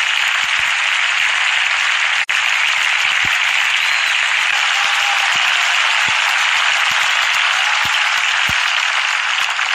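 Audience applauding steadily, with a momentary break in the sound about two seconds in.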